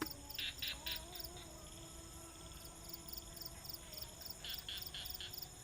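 Night insects chirping: a steady, rapid high pulsing, with louder bursts of chirps about half a second in and again near the end.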